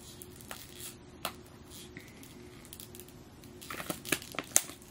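Stiff clear plastic packaging being pried and bent by hand: a few scattered clicks, then a quick run of crinkling crackles near the end.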